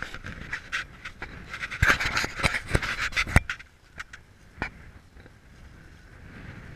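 Breathy, rustling noise close to the microphone, with a few sharp knocks, dropping to a quieter haze a little past halfway.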